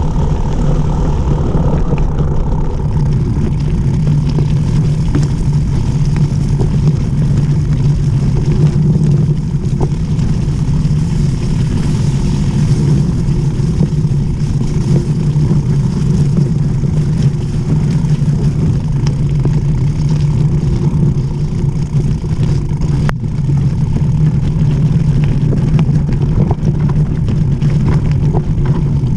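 Mountain bike rolling fast downhill on a wet gravel and snow track: a steady low rumble of wind and tyre noise on the action camera's microphone, with small clicks and rattles from gravel and the bike, and one sharp click about three-quarters of the way through.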